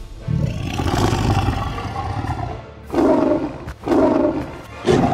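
Tiger roaring: one long roar, then three shorter bursts about a second apart, over background music.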